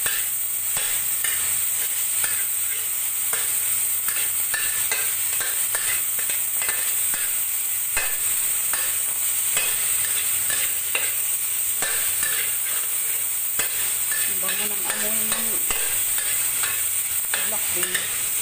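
Tomato, garlic and black beans sizzling in hot oil in an aluminium wok, with a steady hiss, while a metal spatula scrapes and clacks against the pan many times as it stirs them.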